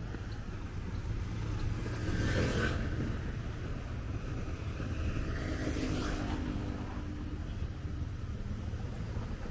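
Street traffic: motor scooters passing close by, one about two seconds in and another about six seconds in, over a steady low rumble of traffic.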